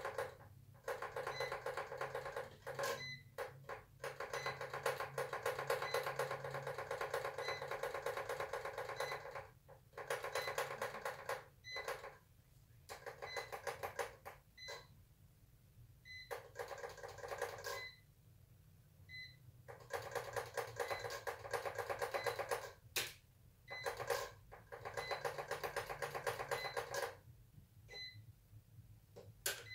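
Music with a steady beat, which stops and starts several times.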